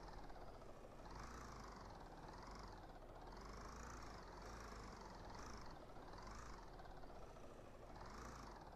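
Faint electronic sound from the piece's live electronics: a soft hiss swept by filters in repeated rising-and-falling arcs, about one a second.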